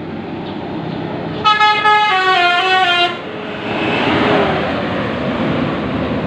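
Bus telolet horn playing a short tune of several stepped notes for about a second and a half, then the bus going by with a rush of engine and tyre noise.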